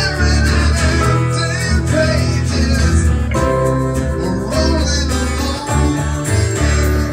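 A small live band playing a song together: strummed acoustic guitar, electric guitar and electric keyboard, over a steady bass line.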